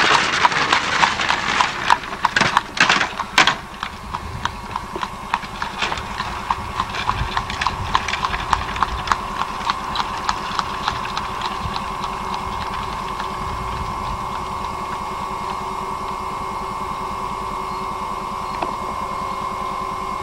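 A horse's hooves clip-clop on the road as a horse-drawn buggy rolls past, close and loud for the first few seconds with the buggy's wheels grinding on the road. The regular hoofbeats then fade away as the buggy moves off, leaving a steady faint whine.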